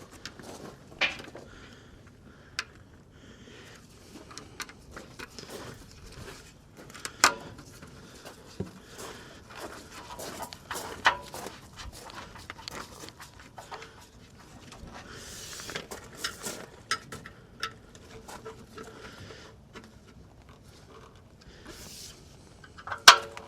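Scattered clicks, taps and knocks of hand work on the Land Rover Series III's body panels as screws are fitted, with a sharp knock near the end the loudest.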